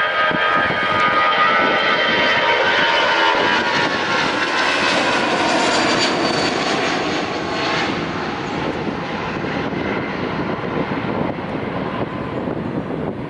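Airbus A319's two CFM56-5B turbofan engines at takeoff thrust: a loud jet roar with whining tones that slowly drop in pitch as the aircraft passes, easing off after about eight seconds.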